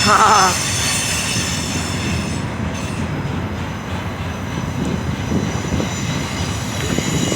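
Union Pacific freight train rolling past with a steady rumble of wheels on rail and a thin, high-pitched wheel squeal.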